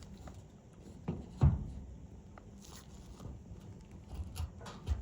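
Handling knocks of a clothes dryer's front panel being fitted onto the cabinet: one loud thump about a second and a half in, a lighter knock just before it, and a few small knocks and clicks near the end.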